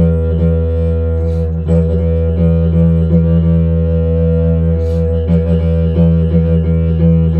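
Didgeridoo played continuously: a low drone held without a break, its overtones shifting in a quick rhythm, with two short breathy hisses, a little over a second in and about five seconds in.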